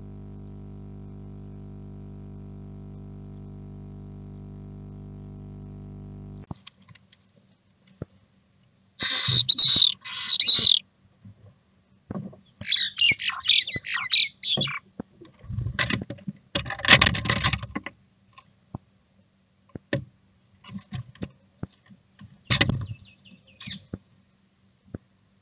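A swift screaming in several harsh bursts inside its nest box, heard through the nest camera's small microphone, with scratchy clicks between the bursts. Before that comes a steady hum that cuts off about six seconds in.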